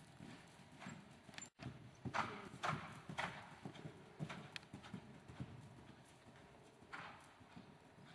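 Hoofbeats of a ridden Welsh cross pony moving over the sand footing of an arena, a rhythmic run of soft strikes about two a second, loudest a couple of seconds in. The audio drops out briefly about a second and a half in.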